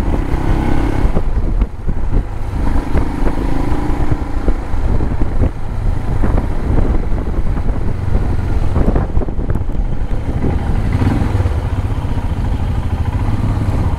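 Royal Enfield Himalayan's single-cylinder engine running as the motorcycle rides slowly through town streets, its note rising and falling a little, with a steady low rumble of wind on the microphone.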